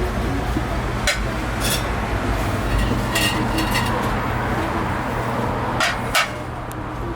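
Kitchen work while a pizza is being made: scattered clinks and knocks of utensils and dishes, about six in all, over a steady low hum of kitchen equipment.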